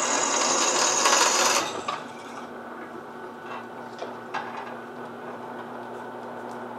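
Drill press bit cutting through the tang of an annealed leaf-spring steel knife blank, a loud grinding that stops about a second and a half in as the bit lifts out. The drill press motor keeps running, with a few light metal clinks as the blade is handled.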